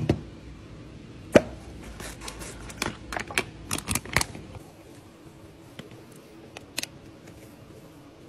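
Hand-handling sounds: a knock as a plastic storage canister is handled, a sharp click a little over a second in, then about two seconds of foil pouch crinkling. After that it goes quieter, with a few light taps as powder is poured into a plastic jar.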